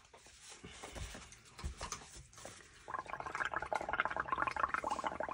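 Air blown through a plastic straw into a tub of soapy paint mix, bubbling in a loud, rapid gurgle from about three seconds in. Before that, light handling noises.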